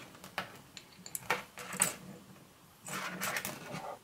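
Small metal hotend parts clicking and tapping as they are handled and test-fitted, a steel thermal tube against an aluminium cooling bar, followed about three seconds in by a second of scraping handling noise.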